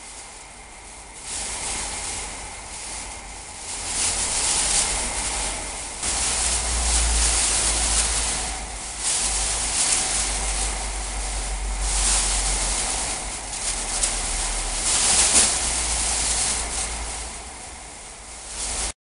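A chain of air-filled plastic bags swishing and rustling through the air as it is swung around, in uneven surges that rise and fall every second or two, over a low rumble. The sound cuts off abruptly near the end.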